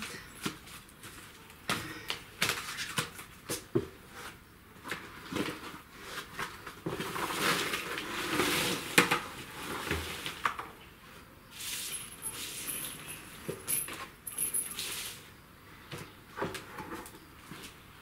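Freshly picked pea pods tipped from a plastic bucket into a plastic crate, a dense rustling pour about seven to nine seconds in, among scattered knocks and clatter of the bucket and crates being handled.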